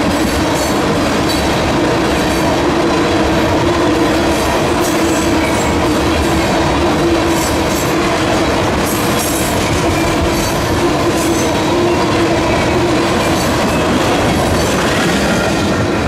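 Freight train tank cars rolling past at speed: a loud, steady rumble of steel wheels on rail with repeated clickety-clack from the wheels crossing rail joints.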